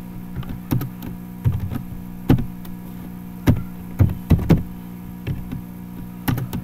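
Computer keyboard keystrokes, a few spaced, irregular taps as a short line of text is typed, over a steady low electrical hum.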